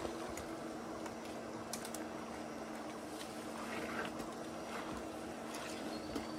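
Scattered light knocks and scrapes of a man climbing a tree trunk through vines, over a steady low hum.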